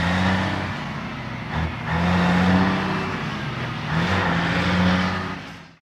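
Truck engine revving in three long pushes with brief dips between them, fading out near the end.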